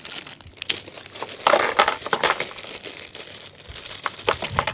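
Plastic packaging crinkling as small kit parts are taken out, with light clinks of small metal hardware.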